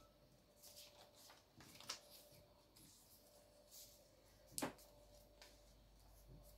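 Near silence: faint room tone with a steady low hum and a few soft clicks and rustles of small objects being handled, the sharpest knock about four and a half seconds in.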